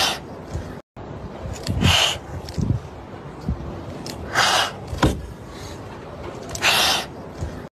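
Young tabby kittens hissing, frightened and defensive: short breathy hisses about every two seconds, with a few sharp clicks in between. The sound cuts out briefly just under a second in.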